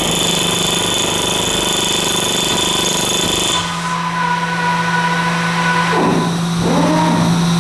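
Air-powered tool running, with a rapid hammering for the first three and a half seconds. It then changes to a steadier hum, with the pitch sliding down and up near the end.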